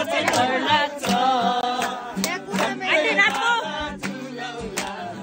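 Several people singing together to a strummed acoustic guitar.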